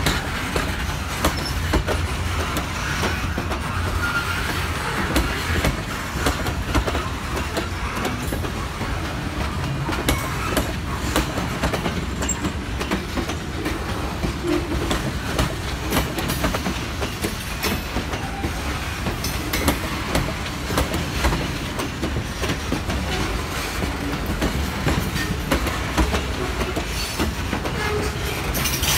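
Freight train's covered hopper cars rolling past, a steady rumble with the wheels clicking over the rail joints again and again.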